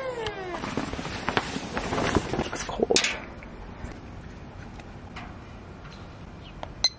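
Footsteps and handling knocks, busiest and loudest in the first three seconds, then quieter handling with a single sharp click near the end.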